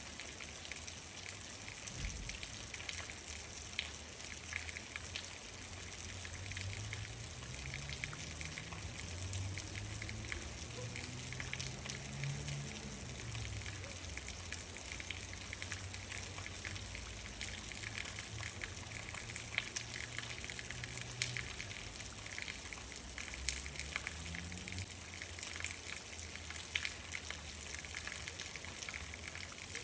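Steady rain: an even hiss with many separate drops ticking close by. A low rumble with slowly gliding pitch comes up about six seconds in and dies away a few seconds before the end.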